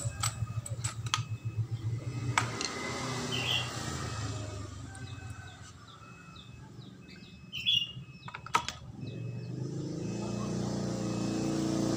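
Metal clicks and knocks as a small engine's cylinder head and pliers are handled on a wooden block, with two sharper knocks about eight seconds in. Birds chirp in the background, and a motor vehicle engine grows louder over the last few seconds.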